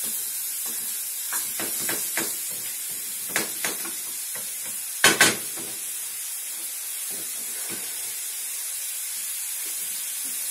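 Chopped onion and garlic sizzling in oil in a frying pan over raised heat, a steady hiss, as the onion is browned for a sofrito. Light taps of a utensil stirring in the pan over the first few seconds, then two sharp knocks in quick succession about five seconds in.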